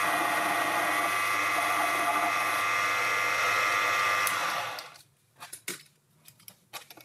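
Small metal lathe running and turning a stainless steel stud, a steady whine with many tones. It winds down and stops a little under five seconds in, followed by several light clicks.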